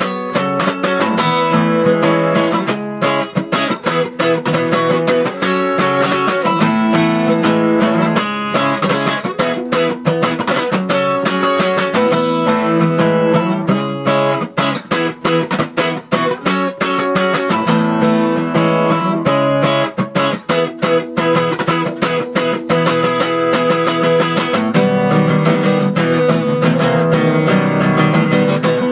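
Acoustic guitar played with a pick: an instrumental piece of picked notes and strummed chords.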